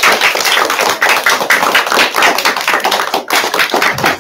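A class of children and their teacher clapping in a round of applause, many quick overlapping claps.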